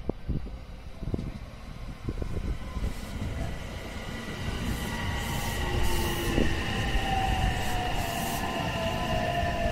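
JR West 227 series 'Urara' electric train running into the station and slowing. The motor whine falls steadily in pitch over the rumble of the wheels, with a few short hisses in the second half.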